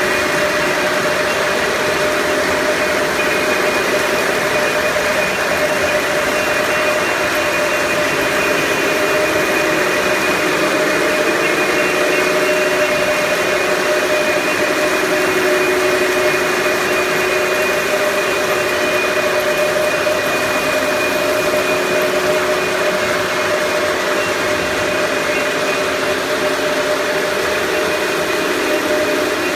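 A machine running steadily: a continuous hiss with several steady humming tones, one of which wavers a little in pitch.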